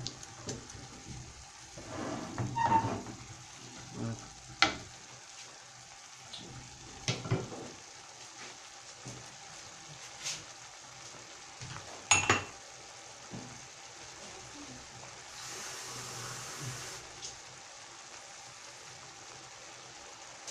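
Tomato sauce with garlic and parsley frying in a non-stick frying pan, a steady low sizzle with scattered sharp pops and spits, the loudest about twelve seconds in. A wooden spoon scrapes and stirs it in the first few seconds.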